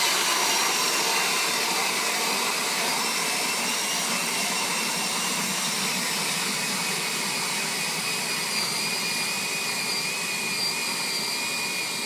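Cordless drill spinning an ice auger, boring steadily down through lake ice, with a continuous high motor whine over the grinding of the blades.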